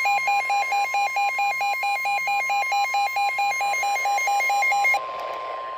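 NOAA Weather Radio warning alarm tone, a steady single-pitch tone announcing a tornado warning, overlaid with a rapid two-pitch beeping of about four beeps a second. The beeping stops about five seconds in, leaving the steady tone alone over radio hiss.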